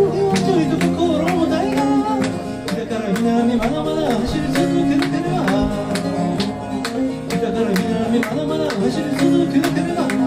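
A man singing a song while strumming an acoustic guitar in a steady, even beat.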